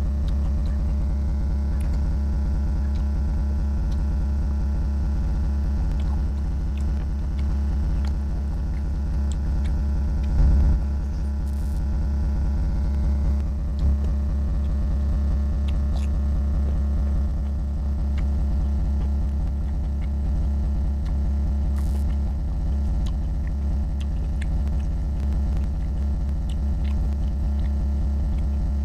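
A steady low hum runs throughout, the loudest sound, under faint scattered clicks of a person chewing and eating rice and curry by hand, with a brief louder noise about ten seconds in.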